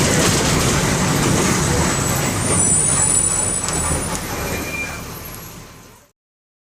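Bus running on its MWM 6.12 TCE inline six-cylinder turbodiesel (225 cv, Euro III), a steady rumble mixed with noise. It fades out and stops about six seconds in.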